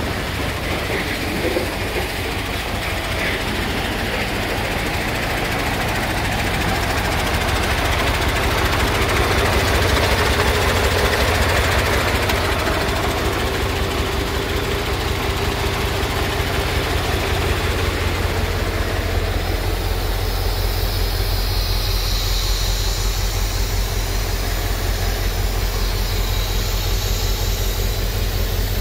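Diesel engine of a Mercedes-Benz 2628 K tipper truck idling steadily with a low rumble, swelling a little for a few seconds partway through.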